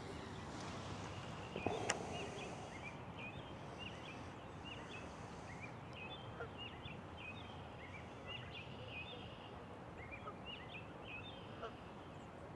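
Small birds chirping in many short, quick notes over a steady outdoor background hiss, with one sharp click about two seconds in.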